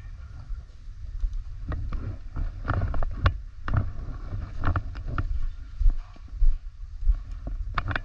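Footsteps and gear scuffing on a debris-strewn floor, irregular knocks at walking pace that cluster in the middle and again near the end, over a steady low rumble on the microphone.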